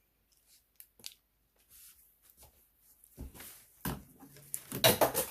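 Handling noise from tools and parts being moved about at the sewing machine. A few light clicks, then from about three seconds in a busy run of clicks, knocks and rustling, loudest near the end.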